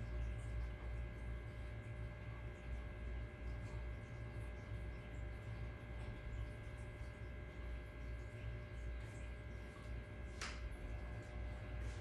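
Steady low electrical hum with two faint steady high tones above it, and one short sharp sound about ten and a half seconds in.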